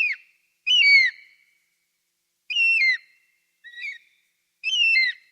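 Eagle calling: high, clear cries about two seconds apart, each held briefly and then dropping in pitch at the end, with a fainter, shorter cry between the last two.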